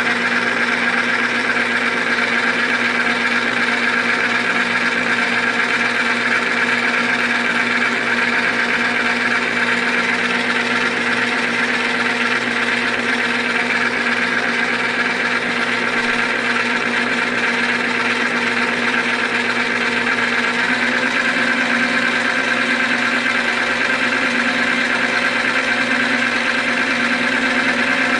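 Manrod MR 301 bench lathe running steadily: motor and gearing hum with a higher whine on top. One of its tones shifts slightly in pitch about two-thirds of the way through.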